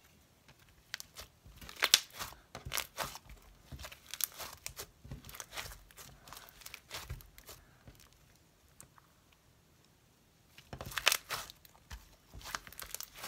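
Black clay-based slime with foam beads mixed in being stretched, pressed and kneaded on a table: irregular bursts of crackling, crunching pops. It goes quiet for a couple of seconds about two-thirds through, then crackles again near the end.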